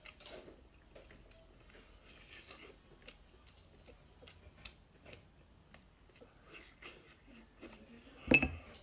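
Close-up mouth sounds of a person chewing a mouthful of braised meat: soft wet smacking with many small scattered clicks. A short, louder burst comes near the end.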